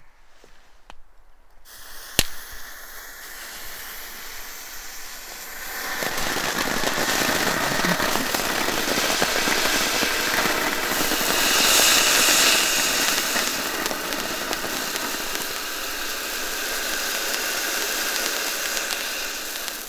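Small category 1 firework fountain hissing steadily as it burns, with one sharp crack just after it starts. The hiss grows louder about six seconds in, is loudest around the middle and stops abruptly at the end.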